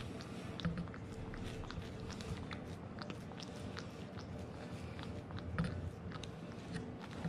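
Tabby cat licking a treat off a hand-held spoon close to the microphone: quick, irregular wet tongue clicks and smacks, a few of them louder.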